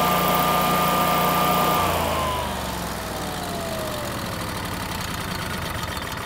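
Generac home standby generator's G-Force engine running with a steady whine. About two seconds in, the whine falls in pitch and the engine winds down as the generator is switched off.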